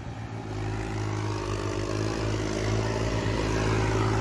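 Two diesel tractors, one a John Deere 5039D, running at full throttle and pulling against each other, the engines labouring steadily under heavy load and growing slowly louder.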